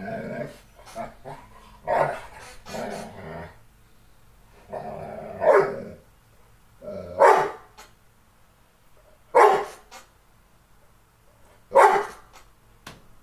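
A dog barking, with several loud barks spaced two to three seconds apart and longer, lower growling calls near the start.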